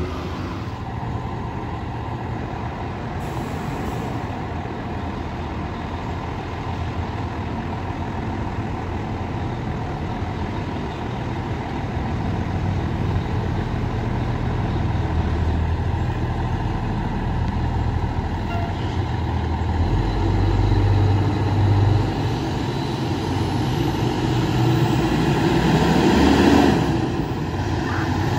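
Diesel engine of a 2005 Pierce Arrow XT fire engine-tanker running with a low, steady rumble, growing louder in the second half as the truck pulls out of its station bay.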